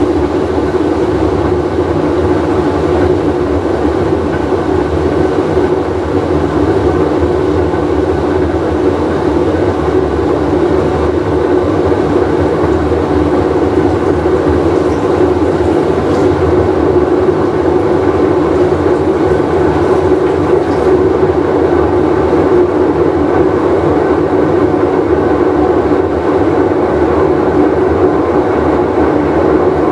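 Whirlpool Cabrio top-load washing machine running with a loud, steady, train-like rumble from its worn tub bearing.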